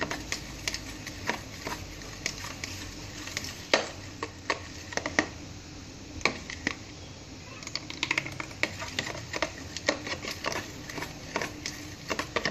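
Metal spoon stirring a thick soy, ketchup and oyster sauce mixture in a plastic tub, clicking and scraping against the sides in quick, irregular taps, with a short lull just past the middle.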